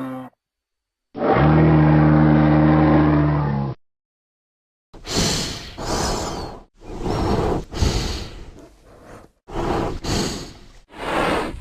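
Parasaurolophus dinosaur sound effects. One long, low call held at a steady pitch cuts off sharply, then after a short pause comes a run of about five short, rough, raspy grunting calls.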